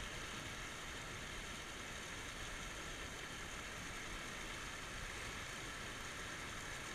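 Steady rush of water spilling over a small concrete weir, an even, unbroken hiss.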